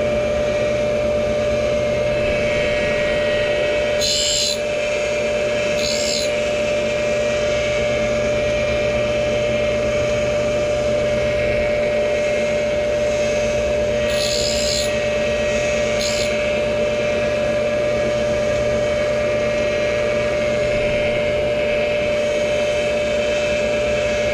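Tool and cutter grinder running with a steady whine as its wheel grinds the teeth of a milling cutter mounted on the arbor. Four brief high hissing scrapes, about four, six, fourteen and sixteen seconds in, are the wheel touching the teeth: light finishing passes that polish the cutting edges.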